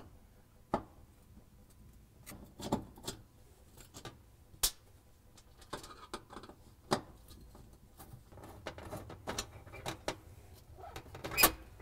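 Phillips screwdriver backing out the screws that hold an electric oven's bake element bracket to the steel back wall of the oven cavity: scattered light metallic clicks and taps at irregular intervals, with one louder knock near the end.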